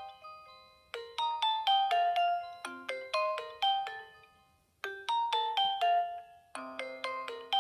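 A Nokia 2630 ringtone played through a Sony Ericsson W595 phone's speaker: a simple melody of short, quickly fading notes. It comes in repeating phrases with a brief pause between them, starting about a second in and again near five and six and a half seconds.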